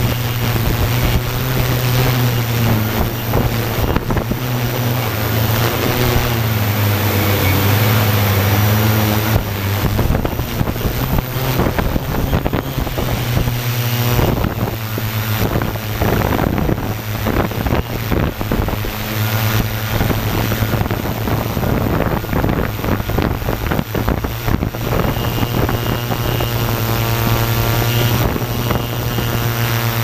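Quadcopter drone's electric motors and propellers buzzing steadily in flight, heard close up from its onboard camera, with wind noise on the microphone. The pitch of the motors shifts about halfway through and again near the end.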